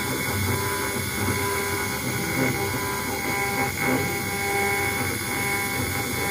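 CNC router spindle running steadily as its cutter engraves a brass plate: a constant whine made of several steady tones over a rough, rumbling noise.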